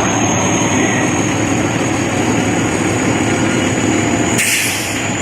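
Heavy diesel engine of a fire apparatus running loud and steady as the rig goes by, with a short burst of air hiss about four seconds in.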